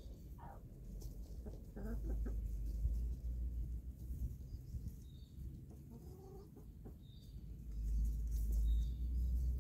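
Chickens clucking, a few short calls about half a second in, around two seconds and around six seconds. Underneath is a low rumble that swells twice, and there are faint high chirps.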